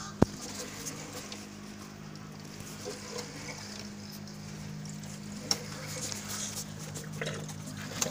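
Small air pump humming steadily while water bubbles and fizzes in a clear plastic tub, with scattered small clicks and one sharp click just after the start.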